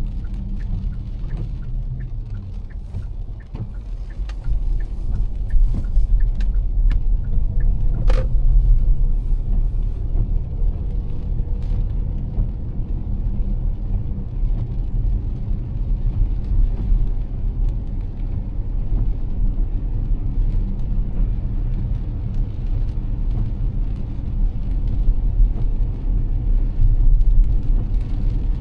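Car driving on a rain-soaked road, heard from inside the car: a steady low rumble of road and tyre noise. Scattered light taps come through in the first ten seconds, with one sharper click about eight seconds in.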